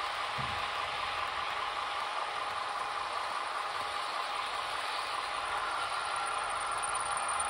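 Model DB Class 193 electric locomotive running with its digital sound decoder on, giving a steady electric-locomotive running hum and hiss from its small speaker, with the model train rolling along the track.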